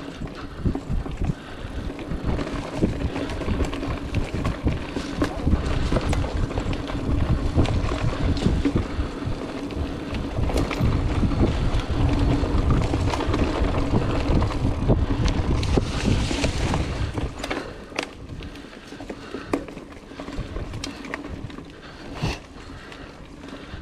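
Trek Roscoe 8 hardtail mountain bike rolling along a dirt singletrack over dry leaves: tyre noise and the bike rattling, with many sharp clicks over bumps. Wind buffets the chest-mounted microphone throughout, strongest through the middle and easing off after about 17 seconds.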